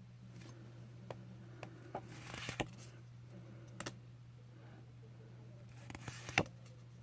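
Trading cards being handled and flipped through: a few light clicks and brief slides of card on card, with a sharper snap about two and a half seconds in and the loudest one near the end. A steady low hum runs underneath.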